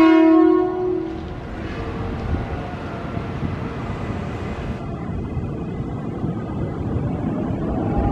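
A train horn sounds briefly at the start, then the steady rumble of container freight wagons rolling along the rails. About five seconds in, the sound turns duller and lower.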